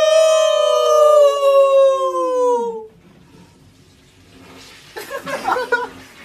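A man imitating a wolf howl with his voice: one long held howl that slides slowly down in pitch and drops away about three seconds in. A short burst of vocal sounds follows near the end.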